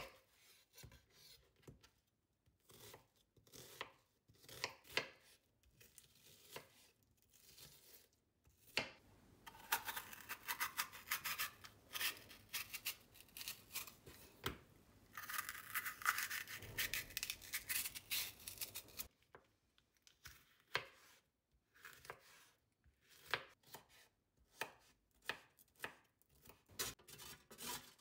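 Kitchen knife cutting an onion and then a red bell pepper on a wooden cutting board. Sharp knocks of the blade on the board, with a long stretch of steady crisp slicing noise in the middle and quicker knocks near the end.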